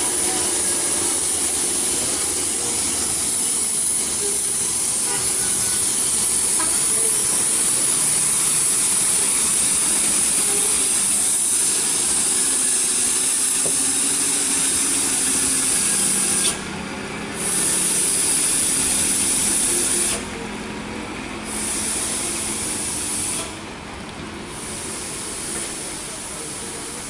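Heavy rain hissing steadily on a wet road, with truck engines running low underneath. Near the end the hiss drops away abruptly and returns several times.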